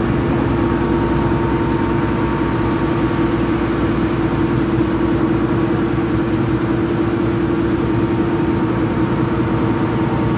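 A river passenger ferry's engine running steadily under way, a loud, even hum that does not change, heard from on board.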